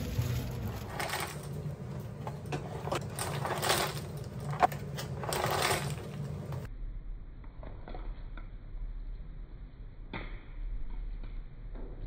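Busy bar-room noise with a low hum and short clatters, then, a little past halfway, a quieter stretch of light clicks and taps as coffee capsules are slotted into a metal wire capsule holder.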